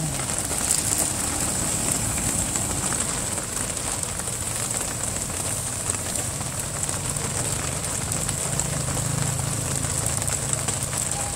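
Steady rain hiss with street noise; from about halfway through, a motor engine runs steadily underneath.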